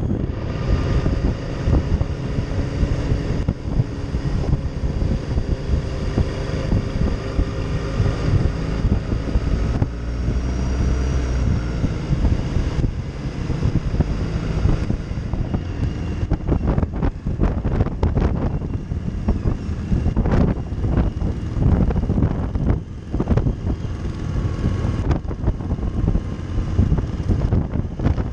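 Motorcycle engine running at road speed under heavy wind noise on the microphone. The engine's pitch drifts up and down. The wind buffeting gets choppier in the second half.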